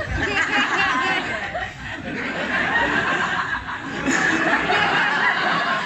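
Audience laughing together, many voices at once. The laughter dips briefly about two seconds in, then swells again.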